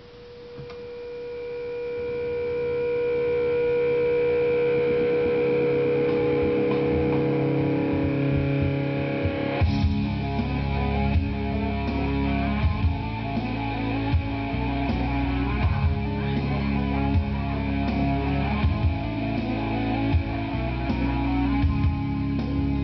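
Background music with guitar, fading in over the first few seconds with long held notes; a fuller band with a steady beat comes in about ten seconds in.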